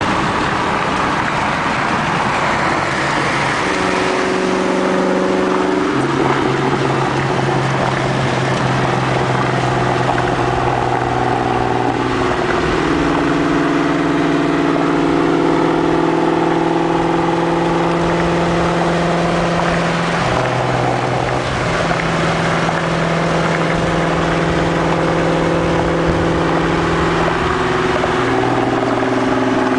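2000 Ford Mustang GT's V8 exhaust running alongside at highway speed, its engine note holding steady pitches that shift up and down several times, over heavy road and wind noise heard from inside a car.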